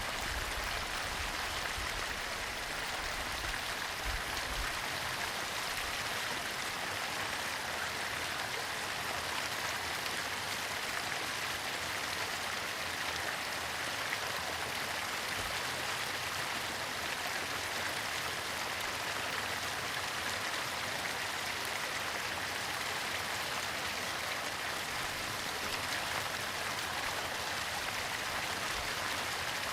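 Small waterfall splashing and rushing steadily, an even hiss of falling water with no breaks.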